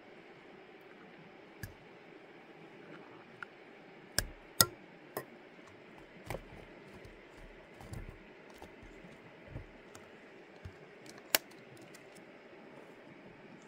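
Light clinks and knocks of cooking gear and dishes being handled at irregular intervals, the sharpest about four and a half seconds in and again near eleven seconds, over a steady faint hiss.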